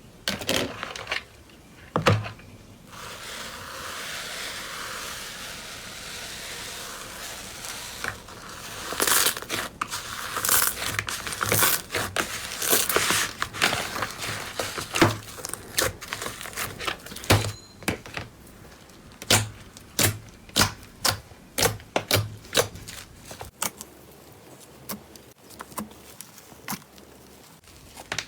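Slime being squeezed and poked by hand: many sharp pops and clicks, with a few seconds of steady crackling hiss near the start.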